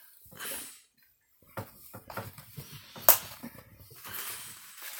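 Toy packaging being handled and opened, rustling with scattered clicks and taps, with one sharp click about three seconds in.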